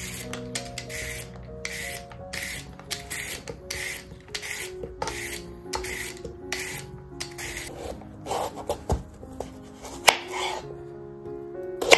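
Y-shaped vegetable peeler scraping down raw carrots in quick repeated strokes, about two or three a second. Near the end a kitchen knife chops through a carrot onto a wooden cutting board with a few sharp knocks.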